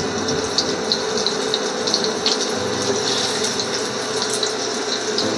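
Potato chunks frying in hot mustard oil in a pan: a steady sizzle with many small crackling pops.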